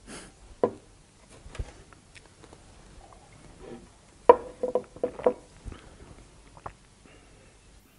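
Light knocks and clicks of a drinking glass and other things handled at a table. The loudest is a quick cluster of sharp taps about four to five seconds in.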